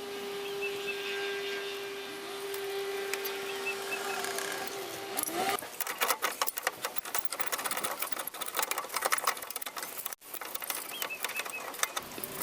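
Rapid, irregular metal clicking and rattling of hand tools and coil spring compressors being fitted to a rear coil spring, starting about halfway through. Before it comes a steady hum of unknown origin.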